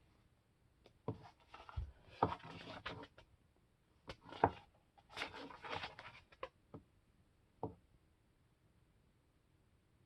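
Faint paper rustles and light knocks from a book being handled and its pages turned, in short bursts that stop about eight seconds in.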